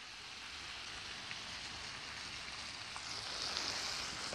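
Floured chicken breasts sizzling in foaming butter in a skillet, a steady frying hiss that grows louder about three seconds in.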